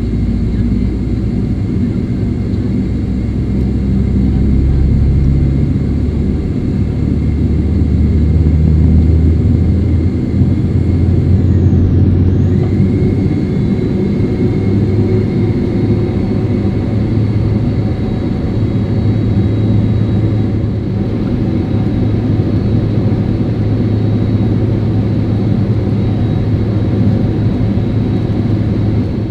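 Jet engines of a Boeing 767-300 running, heard from inside the cabin as a loud, steady low rumble with a thin high whine above it.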